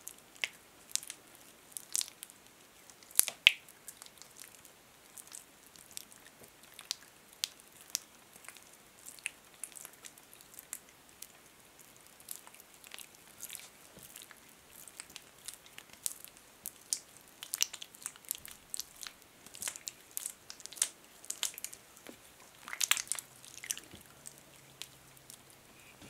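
Hands rubbing thick hand lotion over palms, backs and fingers, giving a dense run of irregular sticky, wet clicks and smacks, with louder clusters about three seconds in and a little before the end.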